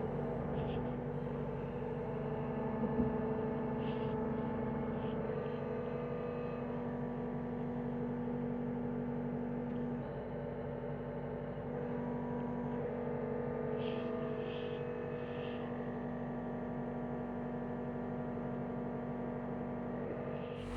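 John Deere 325G compact track loader's diesel engine running at a steady speed, a continuous even drone.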